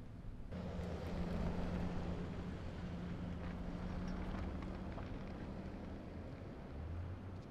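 Street traffic: vehicles driving past with a steady low engine hum and road noise, starting suddenly about half a second in.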